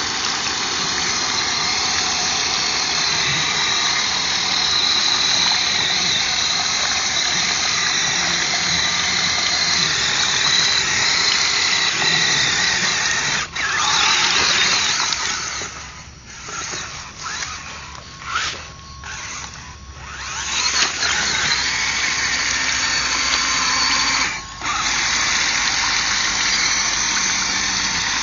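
Electric motor and gears of an RC scale crawler truck whining under throttle as it churns through deep mud. About halfway through, the whine drops out for a few seconds, broken by short bursts of throttle.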